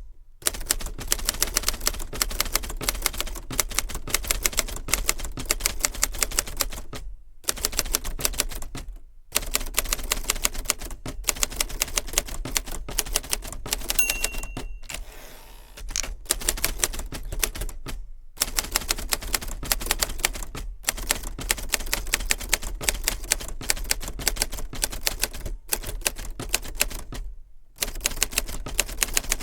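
1963 Hermes 3000 manual typewriter being typed on steadily: rapid keystrokes as metal typebars strike the ribbon and paper, broken by a few short pauses. About halfway through, a single short ring of the end-of-line margin bell.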